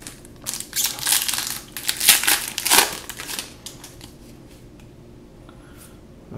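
Foil Magic: The Gathering booster pack wrapper being torn open and crinkled for about two and a half seconds, loudest near the end of that stretch, then the faint handling of the cards pulled from it.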